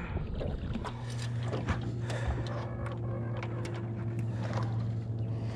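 Bow-mounted electric trolling motor humming steadily, starting about a second in, with scattered light clicks and knocks of tackle on the aluminium boat.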